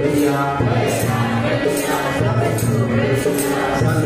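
Harmonium playing a devotional bhajan melody, with jingling hand percussion keeping the beat.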